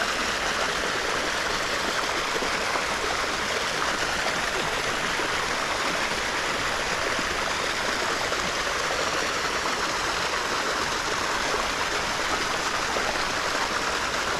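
Water of a small shallow creek running steadily, an even rushing trickle with no breaks.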